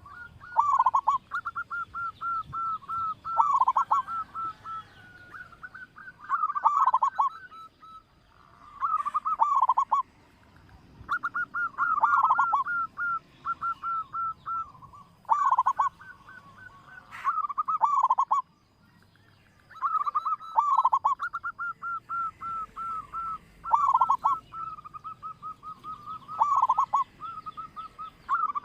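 Zebra dove (perkutut) cooing in repeated phrases: each is a quick run of short clipped notes ending in longer drawn-out notes, with brief pauses between phrases. Faint high chirps of another small bird come through at times.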